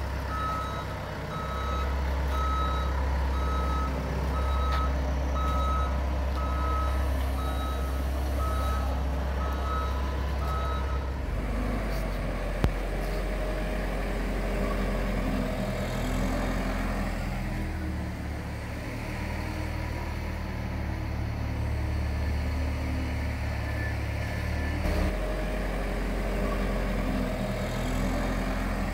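SkyTrak telehandler's diesel engine running under load as it carries the blower cans, its reversing alarm beeping steadily for the first third and then stopping; the engine keeps running, with one sharp click about halfway through.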